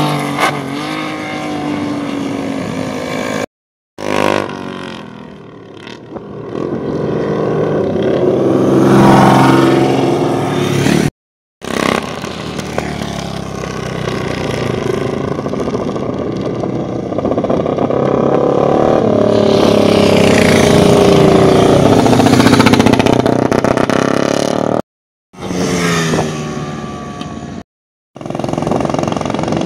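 Classic racing motorcycle engines revving hard and accelerating past, their pitch rising through the gears and falling away. Several separate passes, each ending in an abrupt cut to silence.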